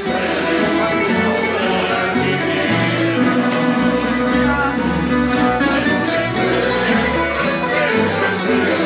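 Tamburica band playing a folk tune live: several small long-necked plucked lutes strumming and picking together, with an accordion.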